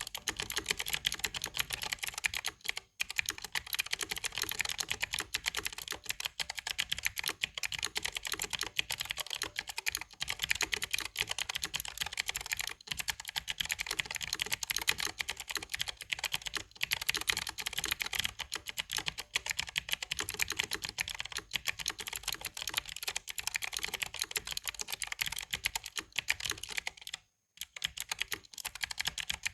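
Fast, continuous typing on an EWEADN TK950 typewriter-style mechanical keyboard with clicky blue switches: a dense clatter of crisp key clicks, pausing briefly near the end.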